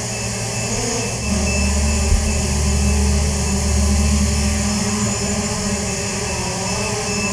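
Small quadcopter drone flying, its propellers giving a steady buzzing whine made of several held tones. A deeper low rumble swells from about a second in to nearly five seconds in, the loudest part.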